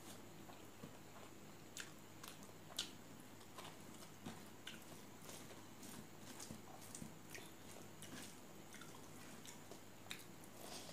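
Faint close-up eating sounds: chewing with soft wet mouth smacks and clicks, and fingers squishing and mixing rice and pork curry, scattered irregularly with one louder click about three seconds in.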